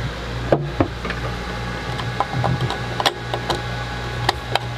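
Scattered sharp clicks and knocks of a small plastic digital display unit being handled and pressed into a boat's helm instrument panel, over a steady low hum.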